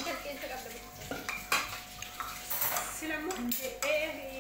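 Spoons and forks scraping and clinking against plates and a serving tray as food is dished up, with several sharp clinks.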